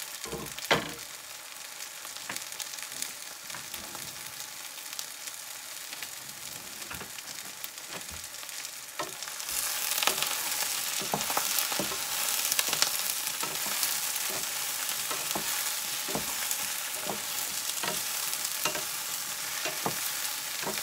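Cubed eggplant and garlic sizzling in olive oil in a frying pan, stirred with two spatulas that knock against the pan now and then. The sizzle gets louder about halfway through.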